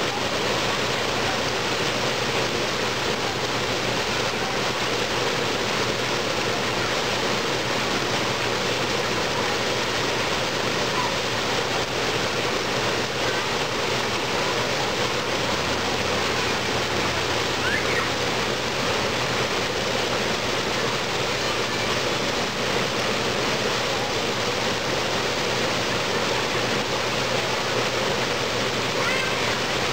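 Waterslide's water stream pouring steadily off the end of the flume and splashing into the pool, a constant rushing noise without a break.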